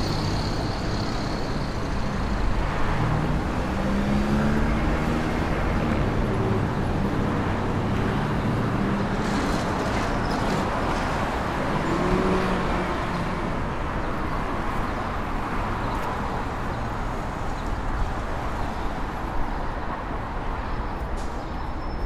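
City street traffic: a steady wash of car engines and tyre noise, with the low hum of engines running close by for several seconds partway through.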